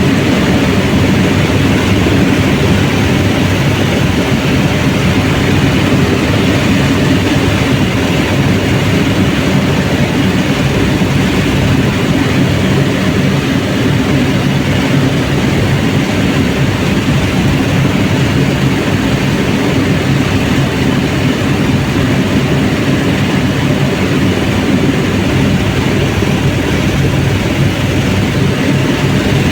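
Helicopter in flight: a loud, steady drone of rotor and engine that holds level throughout, with a low hum over a wide rushing noise.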